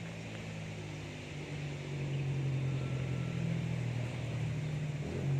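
Caterpillar D6G bulldozer's diesel engine running steadily, growing louder about a second and a half in.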